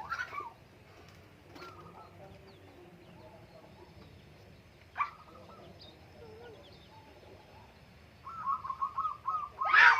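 Zebra doves (perkutut) calling, with faint chirps of other small birds. About eight seconds in a quick run of repeated coo notes starts, and it ends in a louder, sharper call. There is a single sharp click about halfway through.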